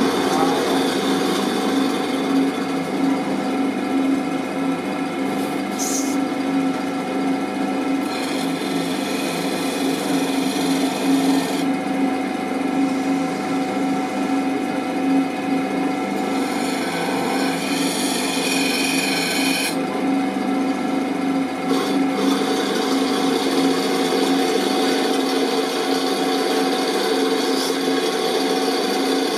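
Lapidary grinding machine running steadily: its electric motor hums as the horizontal disc spins, and a gemstone is rubbed against the disc. A harsher hiss comes and goes twice in the middle.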